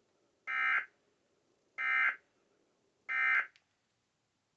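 Emergency Alert System end-of-message signal: three short bursts of SAME digital data tones, each about a third of a second long and spaced a little over a second apart. The bursts mark the end of the alert broadcast.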